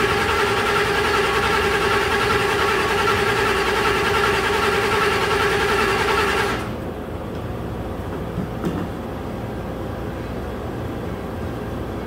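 2015 Ford F-150 engine cranking on its starter with propane fed into the air intake, and not firing; the cranking stops abruptly about six and a half seconds in, leaving a low steady hum. The engine's failure to start even on propane points away from fuel delivery as the cause of the crank-no-start.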